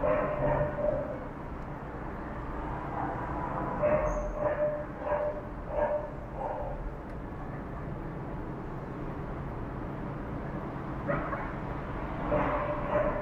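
Dogs barking and yelping in short pitched calls, in three bouts: one at the start, a run of about five calls in the middle, and another near the end. A steady low background hum runs underneath.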